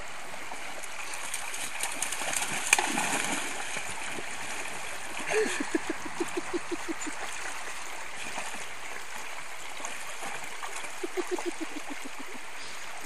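Shallow rocky stream running steadily, with splashing as a dog wades and plunges her head under the water. Twice a quick run of short pitched sounds falls in pitch.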